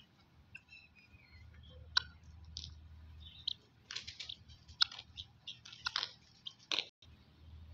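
Rabbits and guineafowl feeding on a lawn: scattered sharp clicks and crunches of chewing and pecking, coming at uneven intervals, with a few faint high chirps early on.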